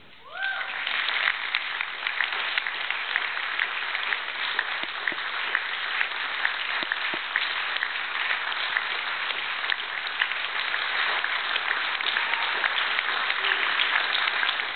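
Audience applauding, many hands clapping; it starts suddenly just after the start and carries on steadily throughout.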